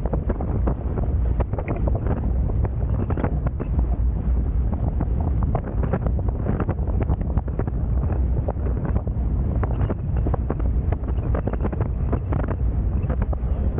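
Steady heavy wind buffeting on the microphone of a camera aboard a Hobie Tiger F18 catamaran under sail, over the rush of water along the hulls with frequent short splashes and slaps.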